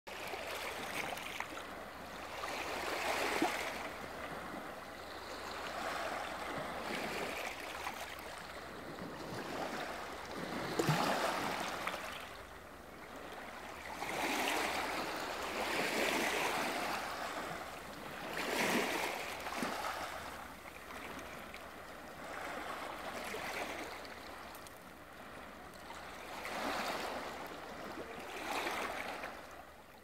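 Small waves lapping on a pebble beach, each wash swelling and ebbing over the stones every few seconds.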